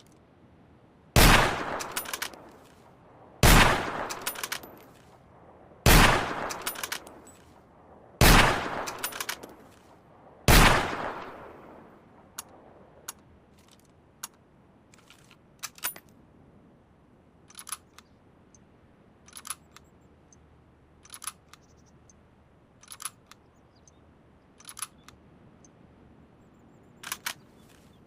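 Five loud gunshots from a Mosin-Nagant M91/30 bolt-action rifle (7.62x54mmR), about two and a half seconds apart, each echoing away. They are followed by a string of much quieter, sharp double clicks every second or two.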